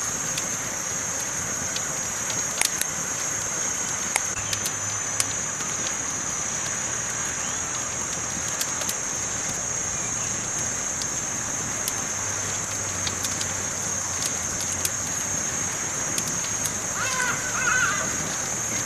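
Campfire burning with scattered sharp crackles and pops over a steady high-pitched hiss. A bird calls briefly near the end.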